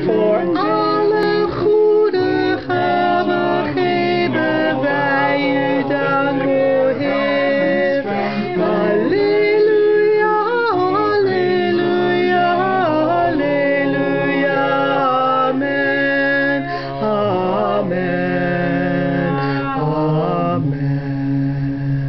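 Mixed men's and women's voices singing a table blessing as a four-part round, the parts overlapping. It goes on in Dutch and then a Latin Alleluia, and ends on a long held chord near the end.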